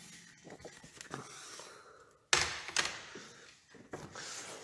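Handling noise as a framed print is taken off a metal music stand: soft rubbing and small clicks, then two sharp knocks about two and a half seconds in, half a second apart.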